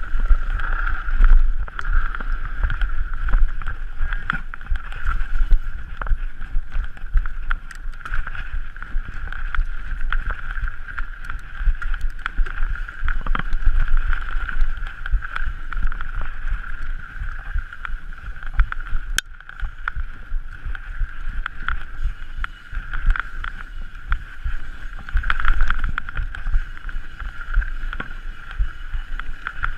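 Mountain bike ridden down a rough enduro trail: wind buffeting the camera microphone, tyres rumbling over dirt and rocks, and the bike rattling and knocking over bumps, with a steady high whirr.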